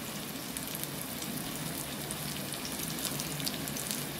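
Chopped onions and tomatoes frying in oil with curry leaves in a steel pan: a steady, gentle sizzle with faint scattered crackles.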